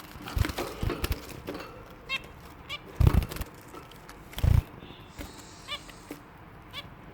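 Finches giving short, scattered chirps, with several dull thumps among them; the loudest thumps come about three and four and a half seconds in.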